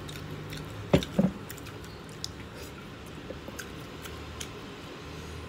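Wet chewing and squishing of a beef burger patty being torn apart and eaten by hand, with scattered small clicks and two sharp knocks about a second in.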